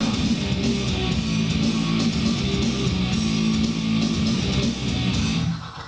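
Guitar music played through a speaker driven by a 200-watt class-D amplifier under test.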